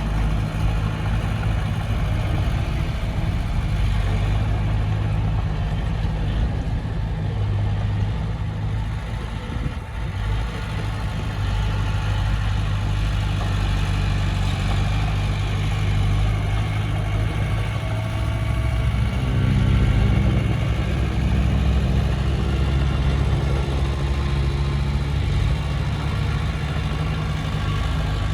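Diesel engine of heavy earthmoving machinery running steadily, its note rising and growing louder about two-thirds of the way through as it takes more throttle.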